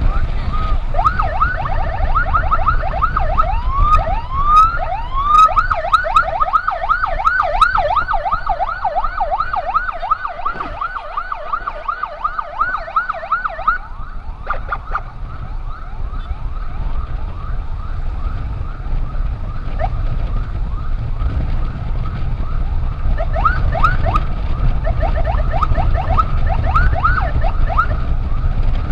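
Electronic emergency siren on a fast yelp, about three to four rising sweeps a second, with a couple of slower rising wails about four to five seconds in. It drops back for a stretch in the middle and comes up strongly again near the end, over a steady low rumble.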